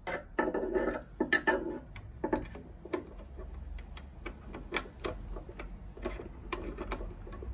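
Screwdriver tip clicking and scraping against a white 20 A fuse and its holder as the fuse is prised at: a run of irregular light clicks and ticks.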